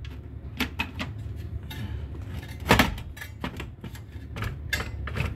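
Clicks, taps and clatter of a wire connector being worked onto a terminal pin on an amplifier circuit board, with one louder knock about three seconds in, over a steady low hum.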